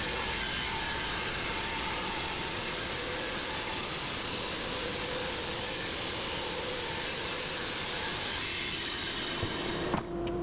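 Wood-Mizer LT15 band sawmill running through a cut, its sound sped up eightfold so that it comes out as a steady, even rushing hiss. It stops abruptly near the end as the cut finishes.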